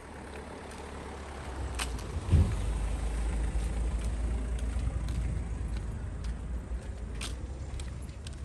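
A road vehicle passing close by: a low rumble that swells about two seconds in and eases off toward the end. Scattered footsteps tick over it.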